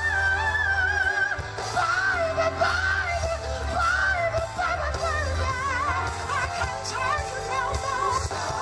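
Live R&B band with a male singer's wordless ad-lib runs, the wavering, vibrato-laden melody riding over bass and drums.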